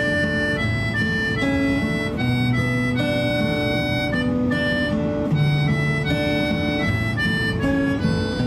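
Background music: an instrumental passage of a pop song, a melody of held notes over guitar accompaniment.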